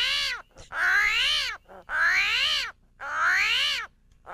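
Armadillo calling: a series of pitched cries, each just under a second long, rising and then falling in pitch, about one a second.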